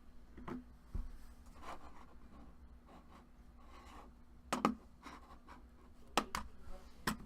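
A sealed trading-card box and its foil packs being handled and opened: scratchy rubbing and rustling, with a sharp snap about halfway through and three more near the end, over a faint steady electrical hum.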